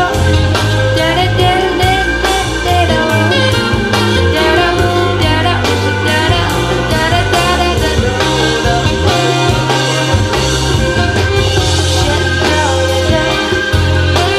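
Recorded music played through a pair of Jamo S606 loudspeakers and picked up by a microphone: a steady beat over a strong bass line, with instruments and perhaps a voice above.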